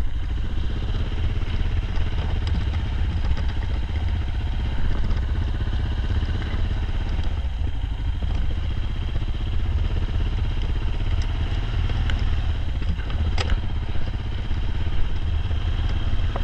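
A vehicle's engine running steadily, heard from aboard as a constant low rumble, with light rattles and one sharp click about 13 seconds in.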